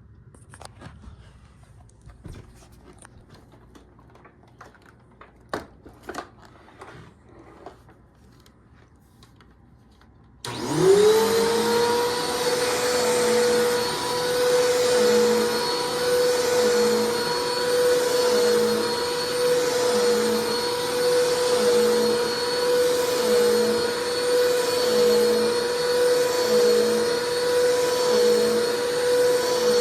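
Eureka Clean Living upright vacuum cleaner: a few faint clicks and knocks, then about ten seconds in the motor switches on, spins up quickly and runs with a steady whine that has a faint pulse about once a second.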